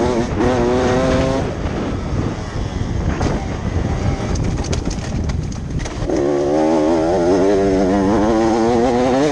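Motocross bike engine on board, revving up with a rising pitch near the start. Through the middle it eases off under wind and track noise with a few sharp knocks, then it is held at high revs under throttle for the last few seconds.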